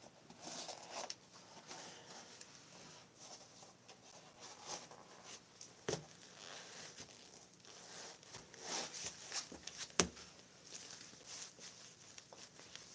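Quiet rustling and handling noise of a shoe being pulled on, with two sharp taps, one about six seconds in and one about ten seconds in.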